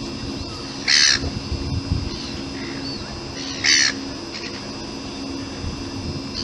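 Gull calling: two loud, short, harsh squawks about two and a half seconds apart, with fainter calls between them, over a steady low background hum.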